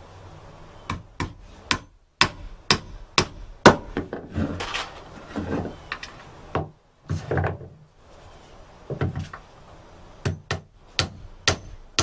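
Hammer driving nails into wooden decking boards by hand. Runs of sharp strikes, about two a second, with a pause in the middle that holds scraping and handling sounds.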